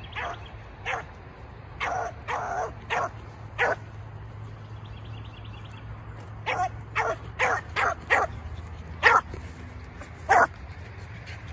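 Beagle pup barking in short chops on a rabbit trail, about a dozen barks in two bunches with a pause of a few seconds between them.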